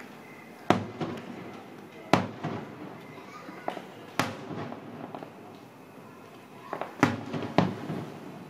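Aerial firework shells bursting: five sharp bangs, each followed by a rolling echo, with a few softer pops in between.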